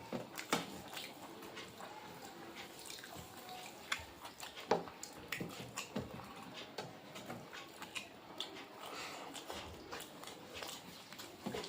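A person eating: chewing, with irregular small clicks and smacks of the mouth.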